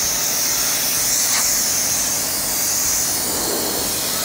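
Compressed-air blow gun on a shop air hose blowing a steady hiss of air along a car door's edges and panel gaps to clear out dust.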